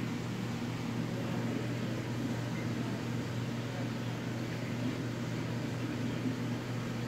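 Aquarium pump or filter running, a steady low hum under a constant hiss.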